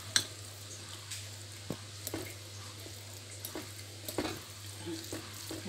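Metal spoon stirring canned corned beef, corn and onion in a ceramic bowl, with a few sharp clinks of the spoon against the bowl. A steady low hum runs underneath.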